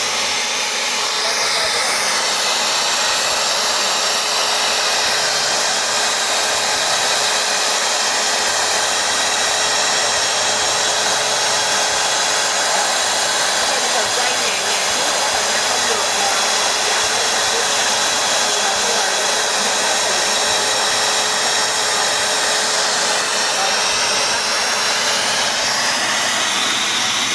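BDS MABasic 850 magnetic core drill's motor running steadily in its 110 rpm gear: a loud, even whir with a steady hum through it.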